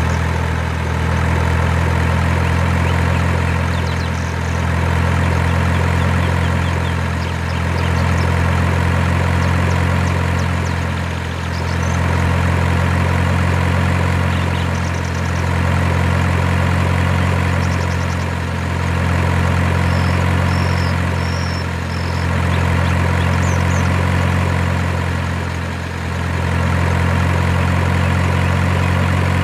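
Heavy truck engine idling with a steady low rumble, swelling and easing back about every four seconds like a looped sound effect.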